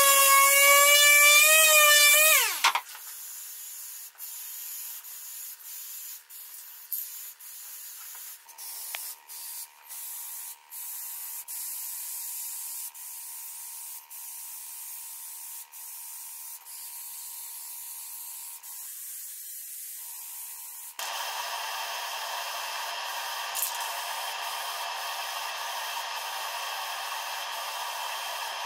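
A palm sander whines against wood, then winds down and stops about two and a half seconds in. An aerosol can of acrylic spray paint then hisses in many short bursts, and about three quarters of the way through it sprays in one longer, louder, steady hiss.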